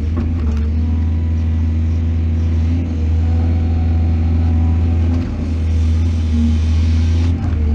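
Excavator's diesel engine running steadily with a deep, even drone, dipping briefly about five seconds in and again near the end.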